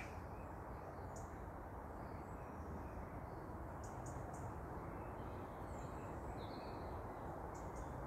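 Scattered bird calls and short chirps, several of them, over a steady rushing background noise that is louder than the calls.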